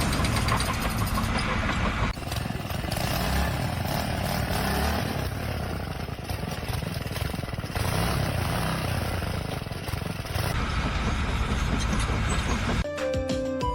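Loud machine or vehicle noise that changes abruptly every two to four seconds, giving way to music near the end.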